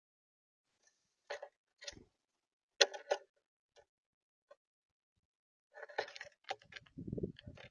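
Irregular taps and clicks of birds pecking and moving about on a bird feeder close to the microphone, coming in clusters, with a dull low thump about seven seconds in.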